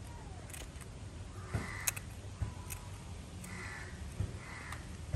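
Kitchen scissors snipping the fins and tail of a large tongue sole, a few sharp clicks, the loudest about two seconds in. Crows caw three times in the background.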